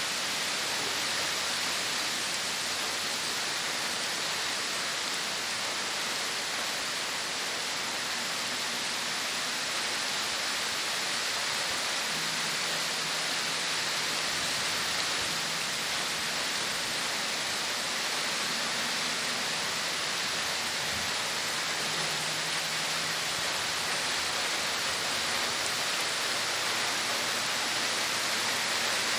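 Heavy rain pouring steadily, a continuous even hiss.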